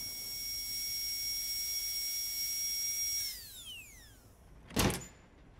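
Film sound effect of a 3D printer at work: a steady high whine with hiss that winds down in pitch and fades out about three seconds in as the print finishes. About a second later there is a short thump.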